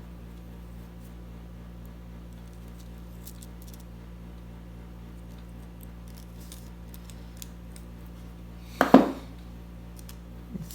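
Faint small clicks of jewelry pliers and metal chain as the jump rings and barrel clasp are worked off a necklace chain, over a steady low hum. A short, louder noise comes about nine seconds in.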